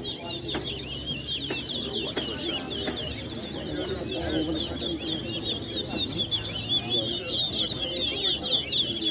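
Towa-towa (chestnut-bellied seed finch) song: a rapid, unbroken string of high chirping notes that grows louder in the second half. This is competition singing, with each completed song tallied by the counters.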